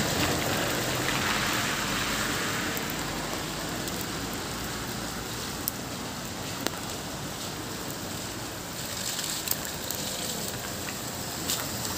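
Steady hiss of sleet falling, with a few faint ticks.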